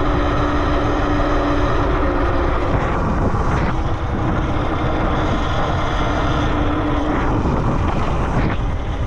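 Talaria Sting R electric dirt bike being ridden, its electric motor giving a steady whine that drops out twice. Heavy wind rumble on the microphone runs under it.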